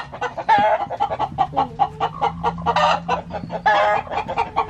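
Chickens clucking rapidly, about five or six clucks a second, broken by a few louder, drawn-out squawks.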